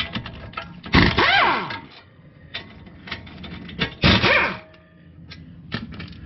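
Compact cordless impact wrench running twice, about a second in and again about four seconds in, to spin out the brake caliper bolts; its motor pitch slides up and down as it runs. Small clicks of the socket and bolts come in between.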